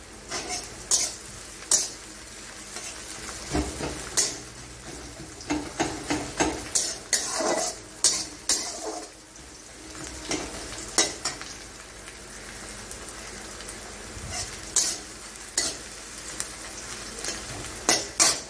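Sliced onions sizzling in hot oil in a metal kadai over a high flame, browning. A spatula scrapes and clinks against the pan many times at irregular intervals as they are stirred.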